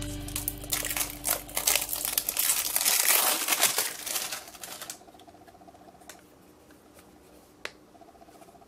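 Thin plastic wrapping crinkling and crackling as it is peeled off a small plastic toy slime barrel, dense for about five seconds, then a few light plastic clicks as the lid is worked loose.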